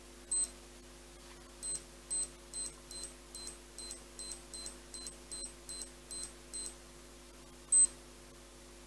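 Spintso Ref Watch 2X's button beeps: one short, high electronic beep, then a run of about thirteen quick beeps, a little over two a second, as the buttons step the half-time interval setting. A last, louder beep comes near the end.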